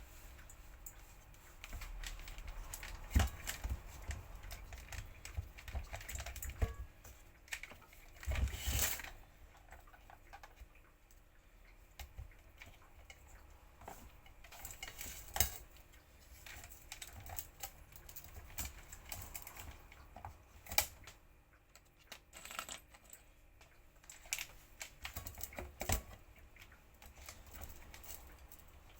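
Irregular clicks, taps and clatter of small hard parts and a hand tool being handled while an industrial vacuum cleaner is reassembled, with a few sharper knocks about 3, 9, 15, 21 and 26 seconds in.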